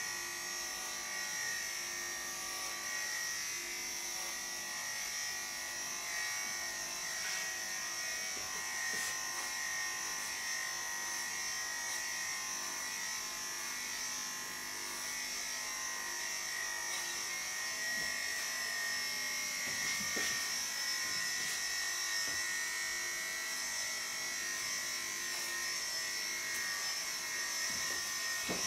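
Electric dog clippers fitted with a 16 mm metal guard comb, running with a steady, unbroken hum while shaving a bichon frise's unwashed, curly coat.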